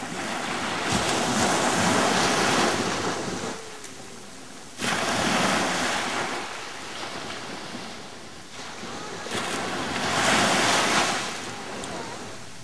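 Small waves breaking and washing up the sand at the water's edge, the rush swelling and fading about three times, with wind on the microphone.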